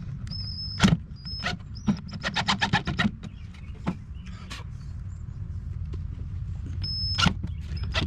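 Cordless drill run in short trigger bursts, a high whine starting and stopping several times as it pre-drills holes in the wood, with a burst of rapid clicking about two seconds in and a steady low hum underneath.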